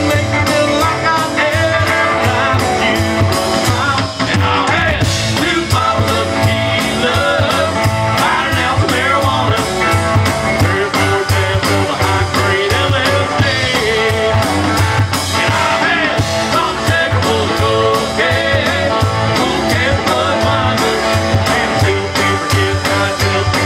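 A live rock band playing loudly: electric and acoustic guitars over a drum kit, played through a stage PA.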